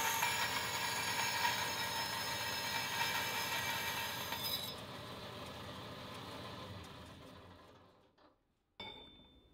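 Vertical bandsaw cutting a notch into the end of a chromoly steel tube, a steady metal-cutting noise with steady ringing tones. About halfway through, the cutting sound stops and the saw's running sound fades away over the next few seconds. A short sharp sound comes in near the end.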